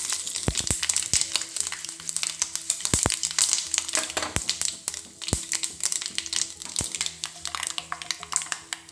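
Mustard seeds, curry leaves and green chillies spluttering in hot oil in a small pan, a tempering for chutney: sharp, irregular pops and crackles, with faint background music underneath.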